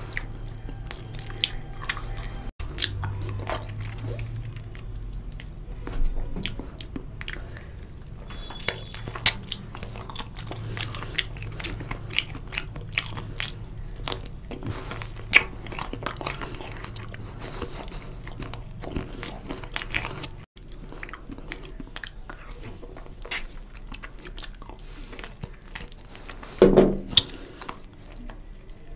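Close-miked eating: a man biting and chewing bone-in kadai chicken and fried rice eaten by hand, with wet mouth smacks and clicks throughout. A louder mouth sound comes near the end.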